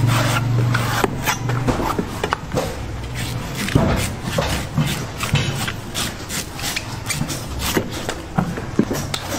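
Large knife chopping and shaving the husk of a green coconut held on a wooden block: a quick, irregular run of chops and scraping strokes.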